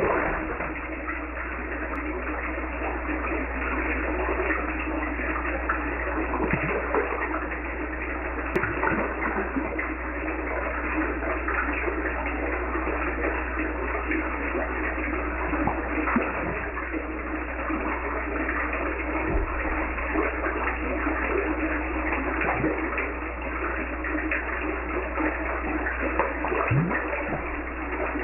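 Water in a tank splashing and running steadily, with a low steady hum underneath.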